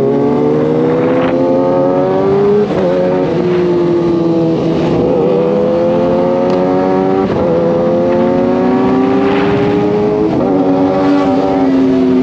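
Superbike engine heard from the rider's seat, pulling up through the gears. The pitch climbs steadily, with a short break and dip at each of several upshifts, then slides down as the throttle eases near the end.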